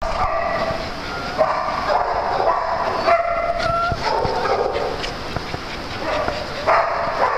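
Small dogs barking and yipping in repeated short calls during rough play.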